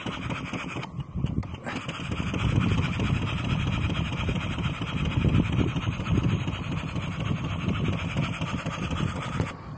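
Vertical single-cylinder model steam engine running steadily in reverse, with a fast even beat of exhaust and a steady hiss of steam; it is running cleanly at about one bar boiler pressure.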